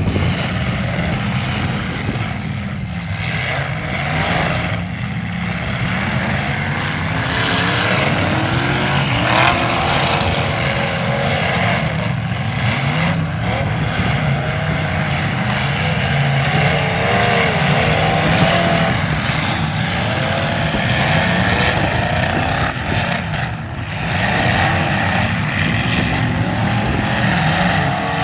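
Demolition derby cars' engines running and revving, pitch rising and falling unevenly.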